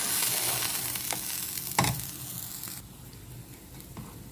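A pot of salt brine boiling on the stove, with a steady bubbling hiss and a single sharp knock about two seconds in; the hiss drops away suddenly just under three seconds in.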